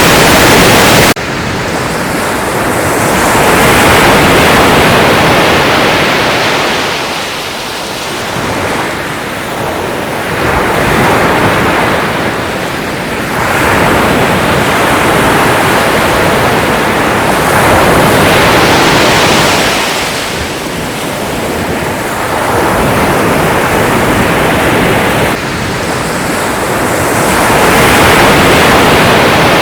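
Sea waves breaking and washing on a shore: a rushing surf that swells and ebbs every few seconds. About a second in, a louder, even rush cuts off suddenly.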